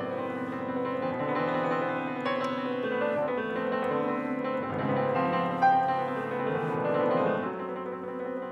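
Grand piano played solo: dense, overlapping notes and chords ringing together, with one sharp louder accent a little past the middle.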